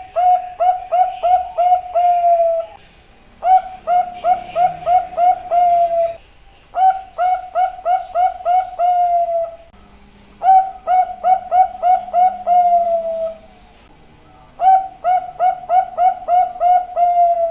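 Zebra dove (perkutut) singing its cooing song five times over. Each phrase is a quick run of six or seven soft coos that ends in one longer, slightly falling note, with about a second's pause before the next phrase.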